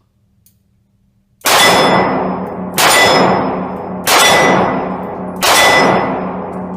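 Four loud metallic clangs just over a second apart, each struck sharply and ringing on with a clear tone as it fades.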